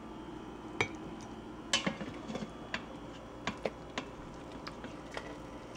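Black plastic slotted spoon tapping and scraping against a plate and the Instant Pot's stainless steel inner pot: a scattering of light, separate clicks and knocks, the loudest a little under two seconds in.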